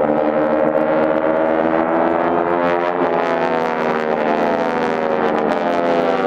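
Several North American T-6 Texans flying in formation overhead: their nine-cylinder Pratt & Whitney R-1340 radial engines and propellers make a loud, steady drone, its pitch sliding up and down as the planes pass about halfway through.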